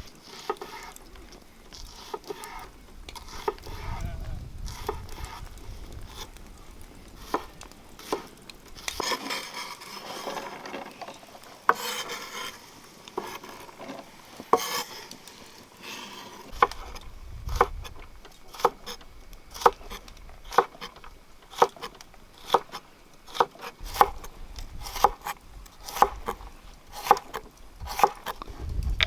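Food sizzling in a metal cooking pan while a metal utensil stirs and clinks against it; in the second half the knocks come regularly, about two a second.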